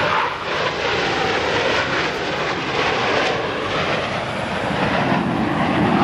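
Jet engines of the Blue Angels' four-jet formation flying past, a loud, steady jet noise.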